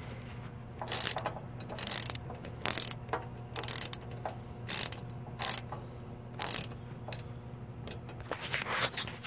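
Socket ratchet clicking in short bursts about once a second as the breather port plug on a Parker integrated hydrostatic transaxle is tightened, with a few quicker clicks near the end. The port has just begun to show oil, the sign that the transaxle is full.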